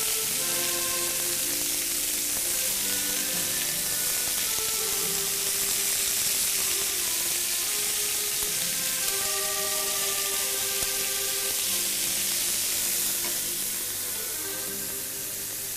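Meat medallions, chicken skewers and potato halves sizzling steadily on a hot flat-top griddle. Background music of held melodic notes plays over it and grows a little quieter near the end.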